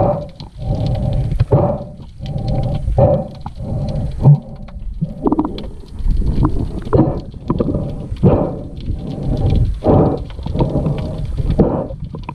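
Muffled underwater rumbling and knocking picked up through an action camera's waterproof housing while a spearfisher handles a speared grouper and spear, coming in irregular pulses less than a second apart.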